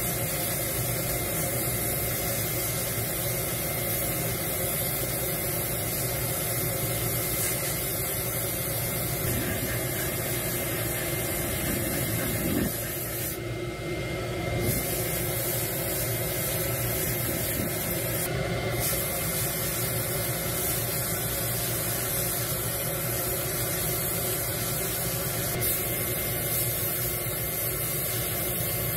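Sandblasting cabinet blast gun hissing steadily as abrasive grit strips a jackhammer part. The blast breaks off briefly twice, about halfway through and again a few seconds later.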